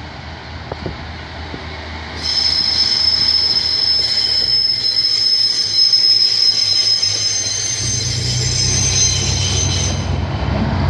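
Class 70 diesel locomotive approaching and drawing alongside. A steady high-pitched wheel squeal starts suddenly about two seconds in and cuts off near the end, while the low drone of the diesel engine grows louder as it passes close by.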